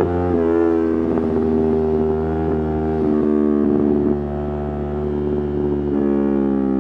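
Yamaha R3's 321 cc parallel-twin engine running under way at fairly steady revs, its pitch stepping down slightly a couple of times.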